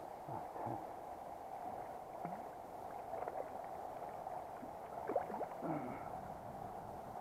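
River water running steadily over a stony bed, with small splashes and gurgles in the shallows as a small brown trout is drawn in and handled, the loudest splash about five seconds in.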